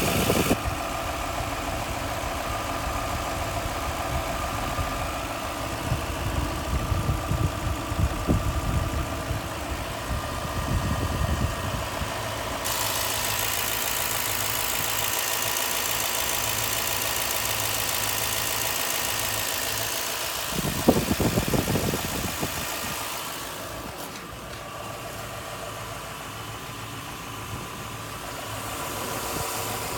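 Toyota 2UZ-FE 4.7-litre V8 petrol engine idling warm, with a knock at the front that the owner puts down to a new timing belt tensioner pulley, a knock that appears once the engine has warmed up. A brief louder noise comes about two-thirds of the way through.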